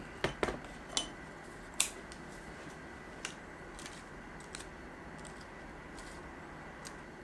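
Scattered light clicks and taps of tableware being handled, about seven in all, the sharpest a little under two seconds in, over a faint steady hum.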